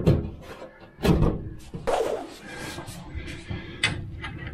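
A few short knocks and clicks from hands handling a wall access panel and its fittings, about a second apart, with light rubbing between.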